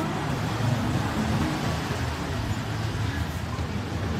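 Steady low rumble of motor vehicle traffic, with no distinct single event standing out.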